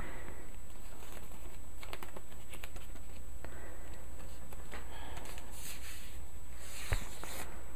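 Faint rustling and light tapping of hands handling things, over a steady low hum, with one sharp click about seven seconds in.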